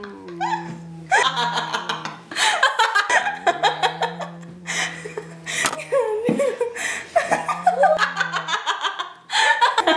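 A woman laughing loudly in repeated bursts of quick ha-ha pulses, with short breaks between them, over a low steady hum.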